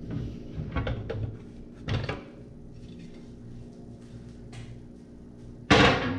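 Handling noise: scattered knocks and clatter as objects are moved about, with a louder clatter near the end, over a faint steady hum.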